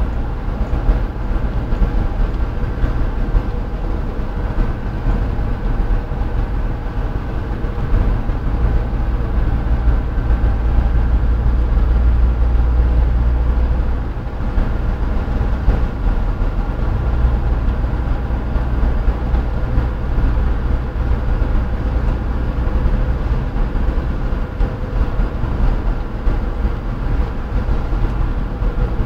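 A vehicle in motion heard from on board: a steady deep rumble with a few faint steady tones above it, growing louder for a few seconds around the middle.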